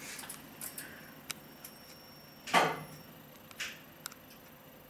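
Kone elevator controller relays clicking in the relay cabinet: a scatter of short sharp clicks, with one much louder clack about halfway through and a smaller one a second later.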